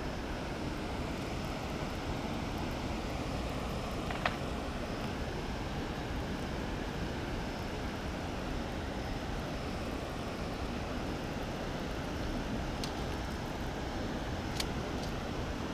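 Steady rushing noise of water running through a spillway, with one sharp click about four seconds in and a few faint ticks near the end.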